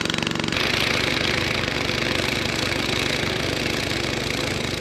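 An engine running steadily at idle. Its sound changes abruptly about half a second in, then carries on evenly and fades a little near the end.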